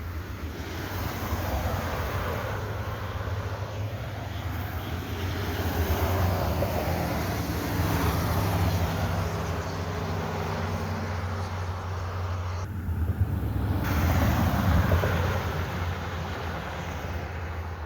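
Road traffic passing: tyre and engine noise swelling and fading over several seconds, with a low, steady engine hum in the middle, loudest about 14 to 15 seconds in.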